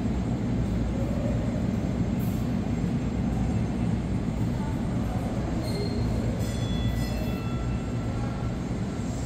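Subway train rumbling steadily out of sight in the tunnel, with a few faint high wheel-squeal tones about six to eight seconds in.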